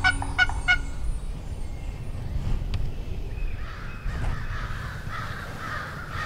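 Wild turkey gobbling, the fast rattling tail of the call ending about a second in, followed by a steady low rumble.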